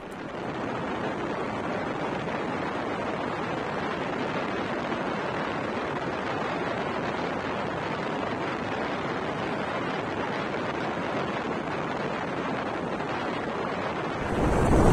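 Steady wind rush on a helmet-mounted action camera's microphone while riding a motorcycle along a road, with no clear engine note coming through.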